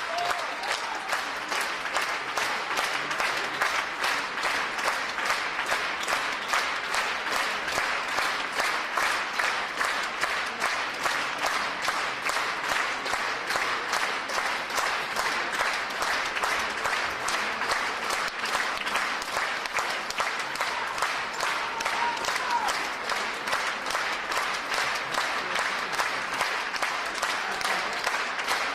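Audience applauding steadily, the clapping falling into a regular, even beat.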